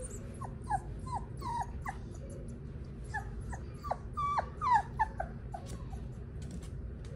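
Young puppy whimpering: a string of short, high cries, each falling in pitch, in two bursts, the louder one past the middle.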